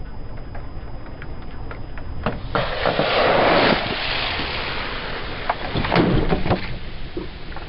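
Car tyre rolling onto a 2-litre plastic Coca-Cola bottle: a loud spraying hiss as the pressurised cola jets out from under the tyre, then a sharp pop and crunch as the bottle bursts about six seconds in.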